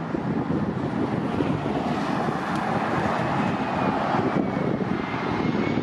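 Jet airliner engines on approach, a steady rush with a faint high whine that slides slightly down in pitch through the second half, with wind buffeting the microphone.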